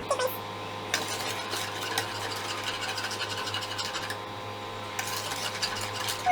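Cake batter being stirred by hand in a bowl, the cinnamon just mixed in, with a utensil scraping and tapping against the bowl in quick, irregular strokes.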